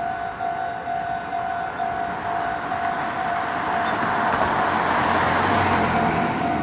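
Japanese railway level crossing's electronic warning bell ringing in a steady repeated ding, about two strokes a second, while a Meitetsu Toyokawa Line train approaches and passes. The train's rushing noise and low rumble build and are loudest about five to six seconds in.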